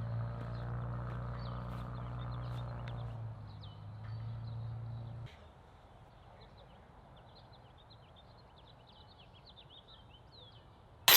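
Birds chirping, with short high calls repeating throughout, over a steady low mechanical hum that cuts off suddenly about five seconds in.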